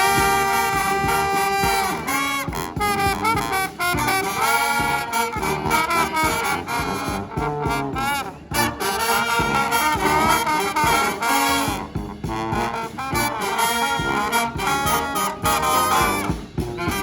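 Brass band playing an instrumental passage, trumpets and trombones in front, opening on long held chords and then moving into busier lines over a steady beat.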